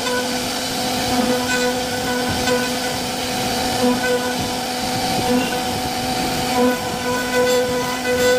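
CNC router spindle carving a relief pattern into a wooden panel: a steady whine with cutting noise that swells and dips slightly as the bit works through the wood.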